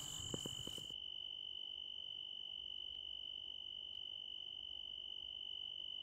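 Male tree cricket singing a steady, unbroken high-pitched song, its raised glassy wings vibrating. The song holds one pitch throughout. A few faint knocks come in the first second.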